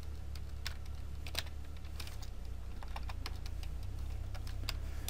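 Typing on a computer keyboard: irregular, scattered keystrokes over a steady low hum.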